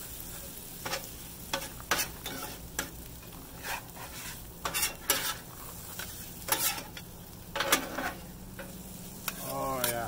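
Metal spatula and bench scraper clacking and scraping on the steel top of a Blackstone griddle as fried rice is chopped and turned, over a steady sizzle of the rice frying. The clacks come irregularly, one or two a second.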